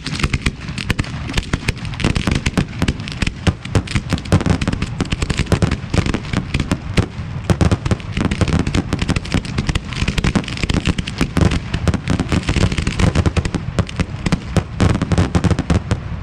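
A barrage of professional display fireworks: mortar-fired aerial shells launching and bursting in rapid, overlapping succession with constant crackle. It keeps up without a break and stops abruptly just after the end.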